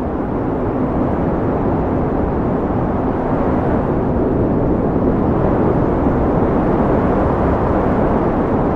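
Wind blowing steadily, a low, even rushing that grows a little louder through the middle and latter part.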